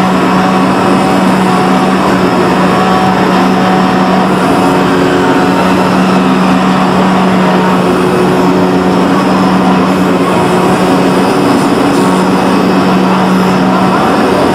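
CNC oscillating knife cutter cutting leather: a steady, loud mechanical hum with a strong low tone over a dense rushing noise as the vibrating blade head and machine drives run.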